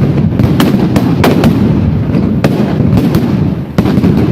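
Dense, loud barrage of fireworks bangs and crackling: many sharp cracks a second over a continuous low rumble.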